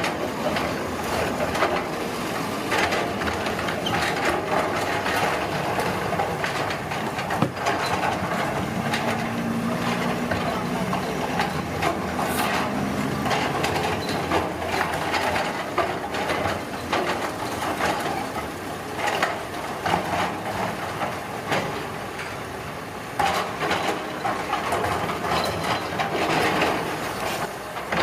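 Heavy construction machinery working on a roadworks site: an engine runs under a continuous rumbling, scraping din with frequent knocks and clatters of material.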